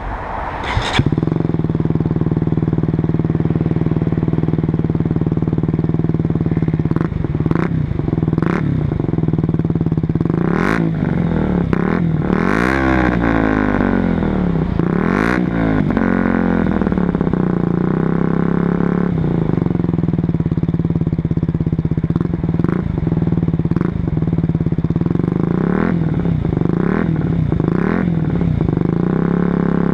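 KTM Duke 125 single-cylinder four-stroke engine breathing through a LeoVince GP-style aftermarket exhaust, idling steadily and blipped up in about a dozen short revs, each rising and falling back to idle.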